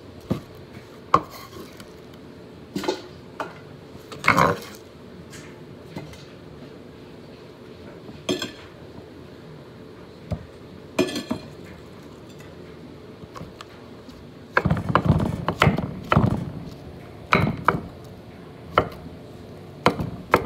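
Large kitchen knife on a wooden cutting board, cutting and scraping vegetables: scattered single knocks of the blade on the board, then a quicker run of chopping strokes about three-quarters of the way in.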